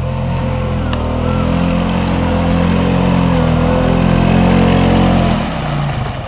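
CFMoto 500 ATV's single-cylinder engine running hard under throttle as the quad ploughs through deep mud, with muddy water splashing. About five seconds in the engine eases off to a lower, softer putter.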